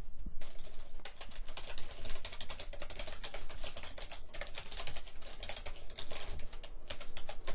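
Fast typing on a computer keyboard: a quick, steady run of key clicks, with short breaks about four seconds in and again near the end.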